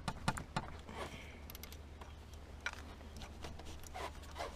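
Wrench on a 14 mm alternator mounting bolt as the bolt is worked loose: scattered light metal clicks and scrapes at irregular intervals, over a steady low hum.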